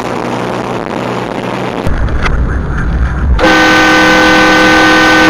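Car-mounted three-chime train air horn blowing one steady chord for about two seconds, starting about three and a half seconds in and cutting off sharply. Vehicle engine and road rumble run beneath it.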